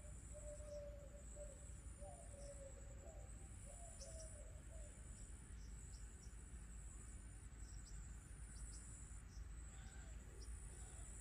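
Insects, crickets by the sound of it, trilling steadily at a high pitch, with an upper layer that pulses on and off about once a second. Faint short bird chirps come now and then, and a low wavering tone runs through the first half.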